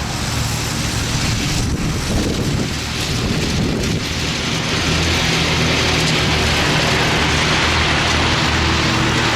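Dixon zero-turn mower's Kohler engine running steadily under a rushing noise. The engine gets louder and holds steady from about four and a half seconds in.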